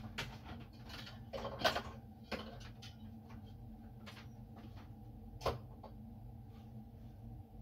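Paper envelopes being handled and filled: light rustling and scattered small knocks, the sharpest about a second and a half in and again past five seconds.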